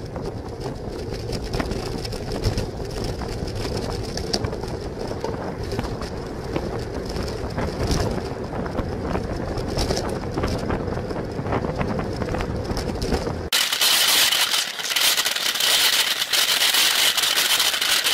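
Wind and road noise on a bicycle-mounted camera's microphone, a steady rumble with scattered faint clicks. About thirteen seconds in it cuts abruptly to a louder, high hiss with no low rumble.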